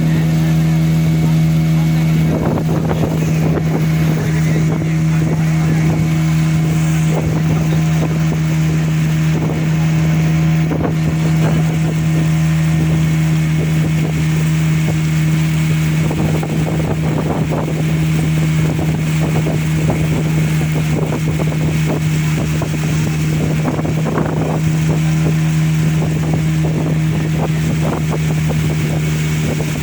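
A motorboat's engine running at a steady speed, with a constant hum. Irregular rushing noise lies over it from about two seconds in until near the end.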